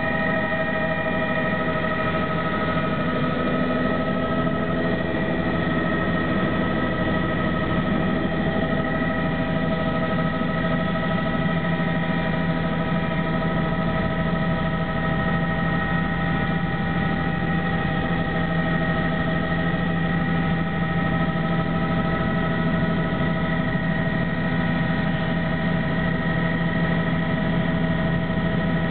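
Tour helicopter in cruise heard from inside the cabin: a steady engine and rotor drone with several constant whining tones over it, unchanging throughout.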